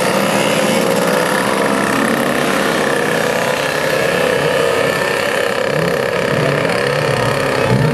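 A group of vintage two-stroke mopeds riding off together, several small engines running at once with wavering, shifting revs as they pull away.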